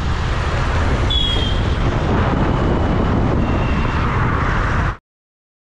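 Road and traffic noise heard while riding in a car: a steady low rumble with a brief high tone about a second in. It cuts off abruptly about five seconds in.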